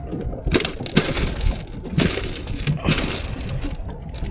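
Crushed ice in a boat's fish box crunching and clinking as a red snapper is pushed into it, in several sharp crunches.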